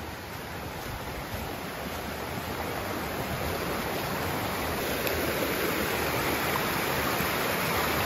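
Rushing mountain creek running over rocks and small cascades, growing steadily louder.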